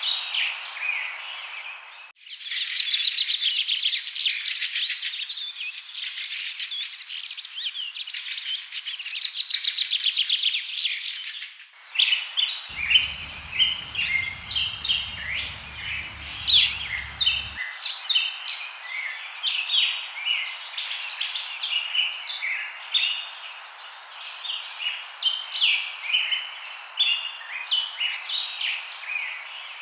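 Recorded songbirds singing in a series of spliced clips: a dense, fast trilling song, then many varied short chirps and whistles. The recording changes abruptly about two seconds in and again about twelve seconds in.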